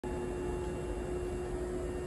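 Steady station ambience in a large railway terminal where electric trains stand at the platforms: a continuous hiss with a constant hum and a few faint steady tones, and no sudden sounds.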